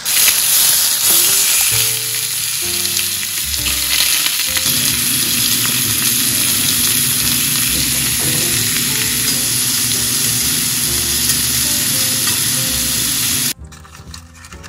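Thick slabs of pork belly and whole garlic cloves sizzling loudly in a hot stainless steel frying pan, a steady hiss that cuts off suddenly near the end.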